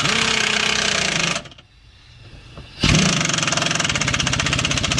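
Impact wrench tightening a subframe bushing bolt. A first run of about a second and a half with the motor spinning up and holding pitch, a short pause, then a longer run of rapid, even hammering as the bolt is driven tight.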